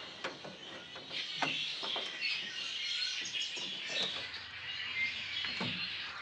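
Many small birds chirping steadily in the background, with a few light clicks from hands working spade connectors onto an automotive fuse and relay panel.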